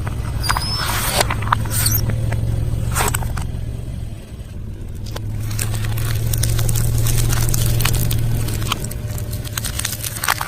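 Close-up chewing and crunching of food, with scattered sharp clicks and crackles, over a steady low hum of a car interior.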